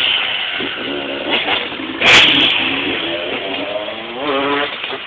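Motocross bike engine revving, its pitch climbing in short rises in the second half, with a sudden loud burst of noise about two seconds in.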